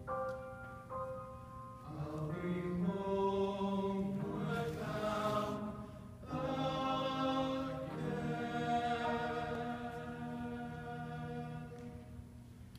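Choir singing sustained chords in slow phrases, closing a choral song, with the last held chord dying away near the end.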